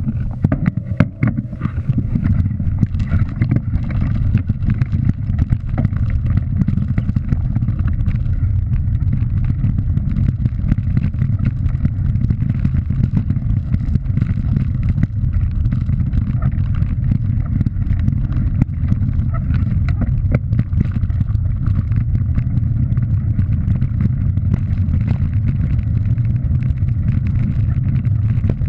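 Wind buffeting the microphone and tyres rumbling over a gravel track at speed: a loud, steady, low rumble with faint scattered clicks of stones and rattles.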